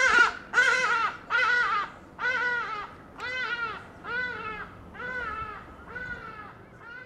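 Hadeda ibis calling: a series of about nine loud, harsh calls, each about half a second long, fading in loudness toward the end.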